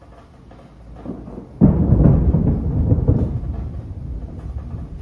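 Thunder from a close lightning strike: a sudden sharp clap about a second and a half in, strong enough to shake a window, followed by a deep rumble that slowly fades.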